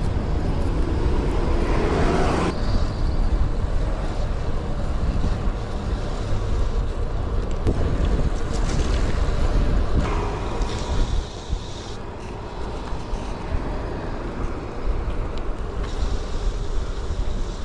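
Wind rumbling on the microphone of a moving bicycle, mixed with road and traffic noise. It gets somewhat quieter about eleven seconds in.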